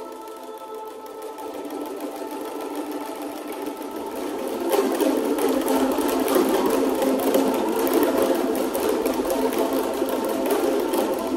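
Many boomwhackers, tuned plastic percussion tubes, struck rapidly together by a group of children, making a dense pitched clatter. Sustained tones at first, then about four and a half seconds in the clatter gets much louder and busier.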